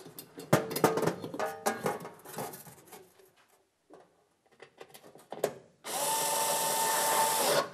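Light knocks and clatter as a metal oven back plate is fitted into place. Then a small cordless electric screwdriver runs steadily with a whine for about two seconds, near the end, driving in a screw to fix the plate.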